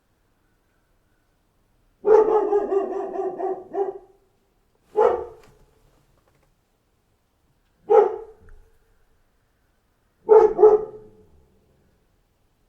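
A dog barking in separate bursts with silent pauses between them. It starts with a drawn-out, wavering cry lasting about two seconds, then gives single sharp barks a few seconds apart and a quick double bark near the end.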